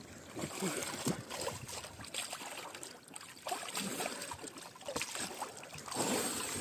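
Water splashing and sloshing irregularly, with scattered small clicks.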